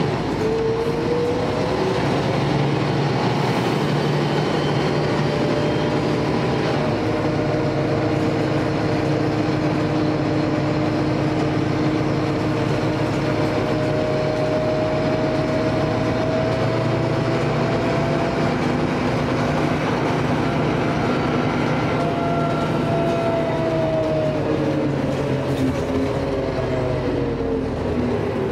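Heuliez GX 317 diesel city bus heard from inside the cabin while under way. A whine from the engine and drivetrain rises in pitch as the bus pulls away at the start, holds fairly steady while cruising, and falls near the end as it slows.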